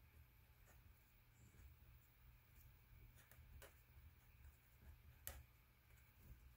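Faint scratching and tapping of a pen writing on paper, with a few small ticks, the sharpest about five seconds in, over a low steady room hum.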